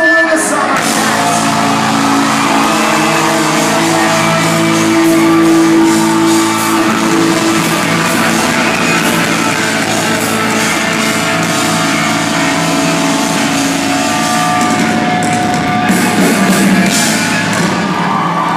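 Live amplified pop-rock band playing, with a sung vocal and long held notes, and the crowd shouting along.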